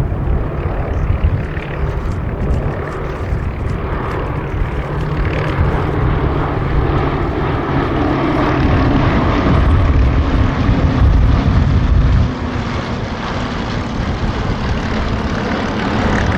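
Hawker Hurricanes' Rolls-Royce Merlin V12 piston engines running, a steady propeller-aircraft drone that grows louder to a peak and drops off sharply about twelve seconds in.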